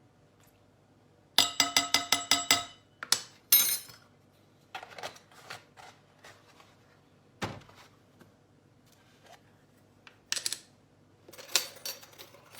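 Metal tablespoon clinking against a mixing bowl: a quick run of about eight ringing taps a little over a second in, which is the loudest part, then scattered lighter clinks and knocks of the spoon and bowl while cocoa powder is spooned in.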